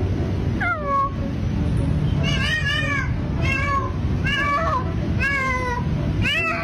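A cat meowing over and over, about six short rising-and-falling meows roughly a second apart, over a steady low background rumble.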